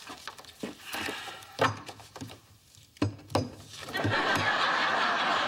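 Glossy photo prints rustling and being tapped down on a dressing table, with a few sharp knocks. About four seconds in, a live studio audience starts laughing steadily.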